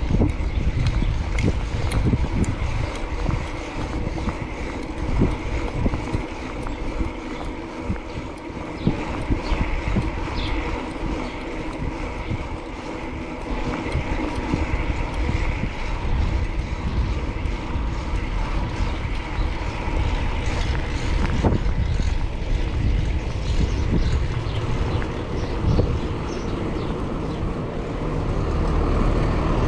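Wind buffeting the microphone of a cyclist riding through city traffic, a constant gusty rumble with the hum of passing vehicles behind it.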